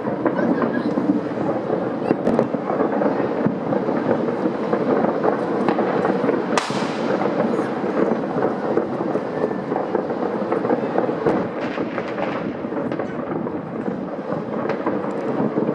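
Many fireworks going off at once across a city: a continuous dense crackle of overlapping distant bangs, with one sharper, louder bang about six and a half seconds in.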